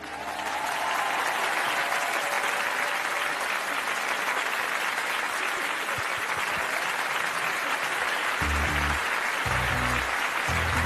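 Studio audience applauding loudly at the end of a song. From about eight seconds in, music with a deep bass beat starts up under the applause.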